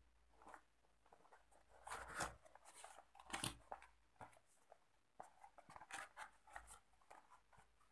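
Faint rustling and scraping of a small cardboard box being opened by hand and its paper packing handled, with a few louder rustles about two and three and a half seconds in.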